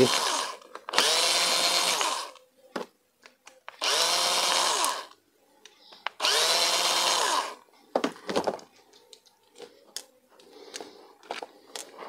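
Small electric screwdriver running three times, about a second each, winding up and down as it backs screws out of a toy RC truck's plastic chassis. A few light clicks and taps follow near the end.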